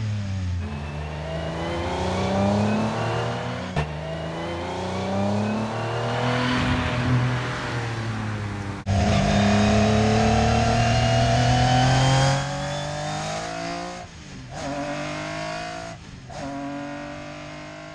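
Metro 6R4 Group B rally car's V6 engine at full throttle, its pitch climbing through the revs and dropping at each gear change. Near the end the engine eases off twice and the sound fades away.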